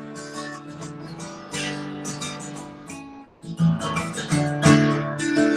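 Acoustic guitar strummed and picked, an instrumental passage between sung verses of a folk song, with a short dip about three seconds in before louder strums resume.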